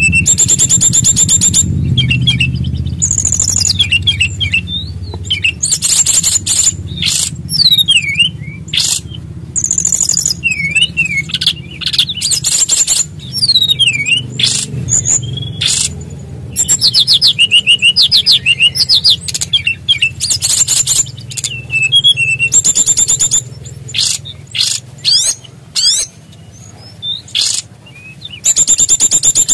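A sikatan rimba dada coklat (SRDC) songbird singing loud, fast song phrases: rapid high trills and rising and falling whistled notes, broken by short pauses and laced with imitations of other birds' calls. A steady low hum runs underneath.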